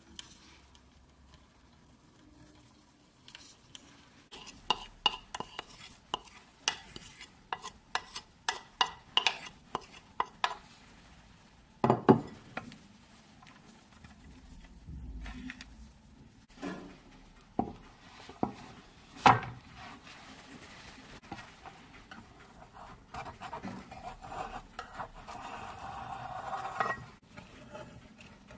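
Kitchen handling noises: a run of sharp clicks and knocks from a wooden spoon against a ceramic plate and a metal baking tin as egg batter is poured and spread, with one louder knock partway through. A softer scraping follows near the end.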